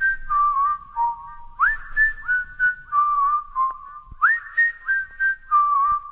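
A whistled melody stepping between a few high notes in a short phrase that repeats, as the intro of a pop song, over faint clicks.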